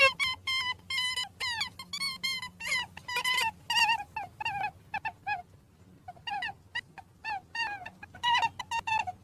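Rabbit squeaking: a run of short, high-pitched squeaks, several a second, some falling in pitch, with a pause of about a second midway.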